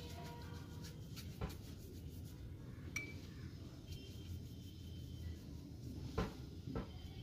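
Faint handling sounds of painting tools on a tabletop: a few light taps and knocks, one a short ringing clink about three seconds in, over a low steady hum.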